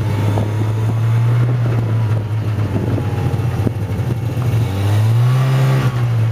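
Snowmobile engine running steadily while riding along a snowy trail. The engine revs up briefly about five seconds in, then settles back.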